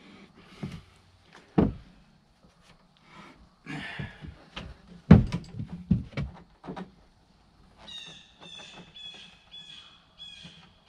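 Scattered knocks and clunks of hands and tools working on an ATV's front brakes, loudest about a second and a half in and about five seconds in. Near the end comes a run of short, evenly spaced high chirps.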